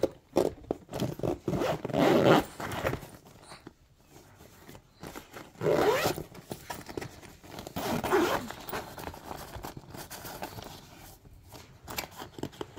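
Zipper on a mesh pocket inside a suitcase's lining being pulled along in several separate rasping strokes.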